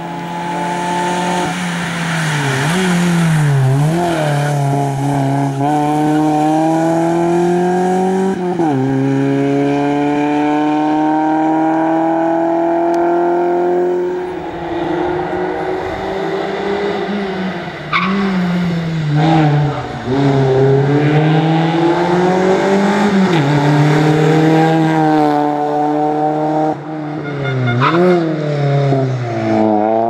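VW Golf III rally car's engine revving hard as it is driven flat out, its pitch climbing through each gear and dropping sharply at every gear change and lift for the corners, over and over.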